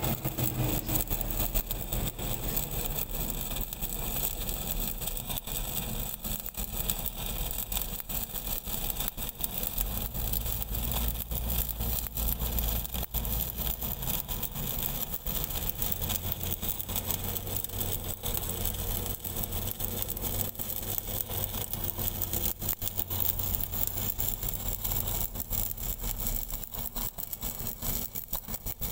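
Stick (SMAW) welding arc crackling and sizzling steadily as the electrode burns along a girth weld on a 630 mm steel pipe, with a low engine drone running underneath.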